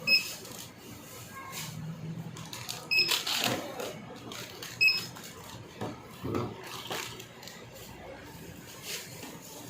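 Supermarket checkout beeper sounding three short electronic beeps, the second about three seconds after the first and the third about two seconds after that.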